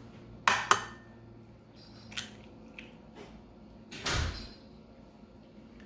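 An eggshell cracked against a bowl with two sharp taps close together, then lighter clicks of shell and a duller knock about four seconds in, as an egg yolk is separated from the white.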